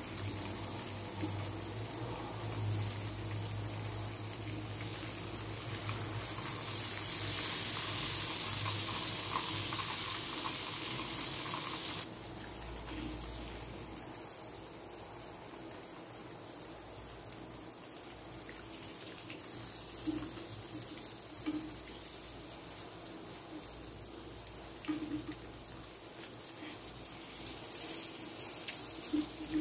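Breaded chicken fillets sizzling in hot frying oil: a steady hiss that is louder for the first twelve seconds, then drops suddenly to a quieter sizzle, with a few short clicks in the second half.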